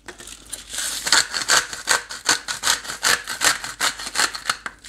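Hand salt grinder being twisted, its burr grinding salt crystals in a quick run of dry rasping strokes, several a second, lasting nearly four seconds.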